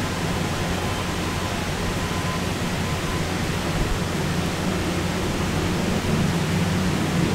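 Steady hiss with a low hum underneath, even and unchanging throughout.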